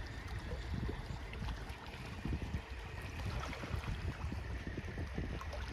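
Outdoor wind buffeting the microphone: uneven low rumbling gusts over a steady background hiss.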